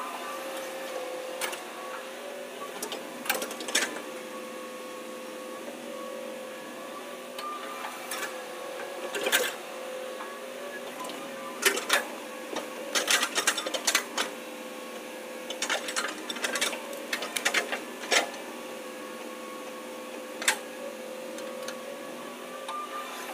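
Hitachi hydraulic excavator running while it digs and swings wet soil: a steady engine and hydraulic whine, with scattered sharp clanks and knocks from the bucket at work, coming in clusters in the middle of the stretch.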